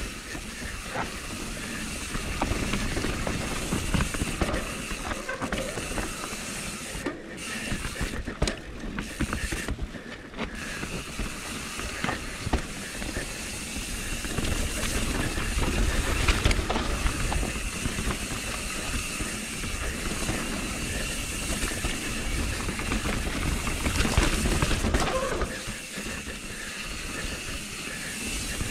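Mountain bike descending a dirt forest trail, heard on an action camera: wind rushing over the microphone and tyres rolling on dirt, with many short knocks and rattles from the bike over bumps and roots, the noise swelling and easing with speed.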